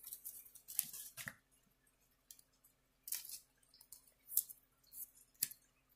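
Faint, scattered short rustles and brushes of a trading card being slipped into a soft plastic sleeve and cards being handled.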